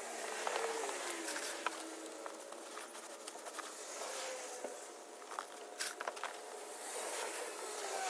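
Gloved hands scraping and patting wet concrete as it is spread over wire mesh, with irregular scrapes and small clicks. A distant engine hums in the background, dropping in pitch about a second in.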